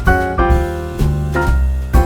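Background music: piano or keyboard notes over a bass line.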